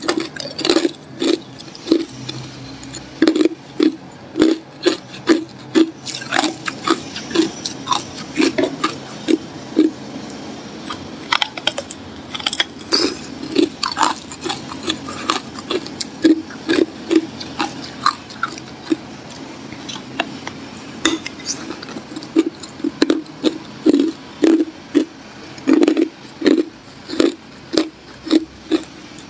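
Hard clear ice being bitten and chewed in the mouth: a steady run of sharp crunches, about two or three a second, with short pauses between bursts.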